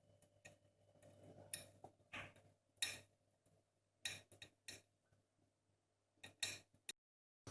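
Light clinks and taps of kitchen utensils and dishes, about ten short, scattered strikes over a faint steady low hum. The sound cuts off abruptly shortly before the end.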